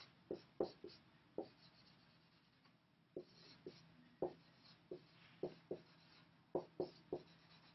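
Dry-erase marker writing on a whiteboard: a faint, uneven series of short taps as the marker touches down for each stroke, with light scratching between them.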